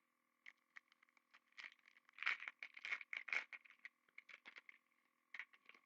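Hockey trading cards and their foil pack wrapper being handled: a quick run of light crinkles, rustles and small clicks, busiest in the middle.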